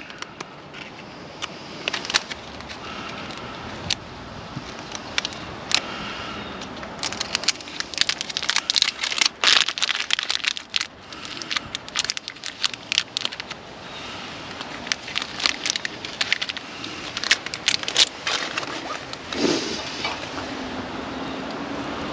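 Irregular clicks, snaps and scrapes of small plastic cable clips being pressed into place and a thin power cable being tucked and handled.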